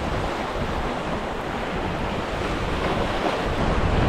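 Sea waves washing and splashing over the stone blocks of a jetty, a steady surf noise, with wind buffeting the microphone that grows heavier near the end.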